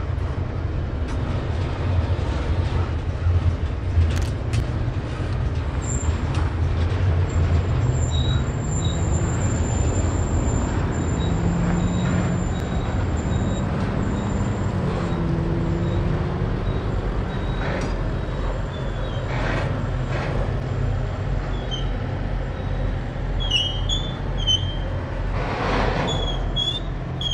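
Canadian Pacific double-stack intermodal container train rolling past: a steady rumble of wheels on rail.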